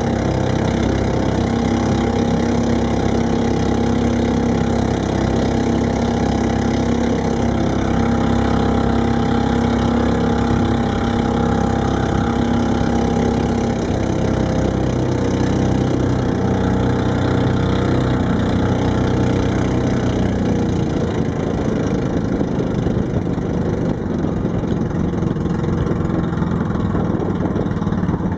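A small boat's engine running steadily under way. About twenty seconds in its pitch falls as it is throttled back, leaving mostly a steady rushing noise.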